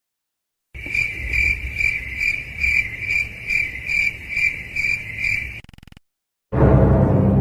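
Stock cricket-chirp sound effect, about a dozen even chirps, two or three a second, then stopping short. This is the effect used to mark an awkward silence. Near the end a loud, full sound cuts in.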